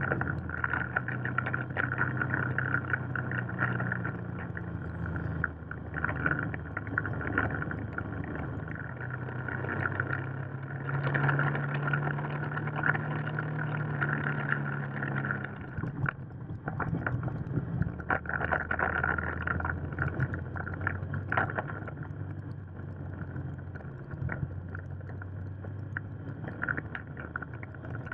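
Motorcycle engine running at road speed, heard from the bike itself over ragged wind rush. Its pitch rises about eleven seconds in and drops back about five seconds later as the rider opens and closes the throttle.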